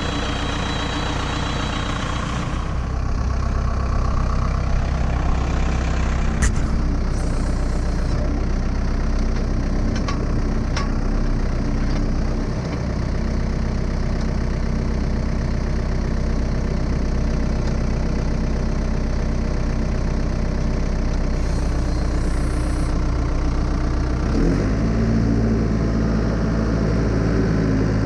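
Skid steer loader's engine running steadily, heard from inside its cab. There are a few sharp knocks between about 6 and 11 seconds in, and the engine note changes about 24 seconds in as the loader works.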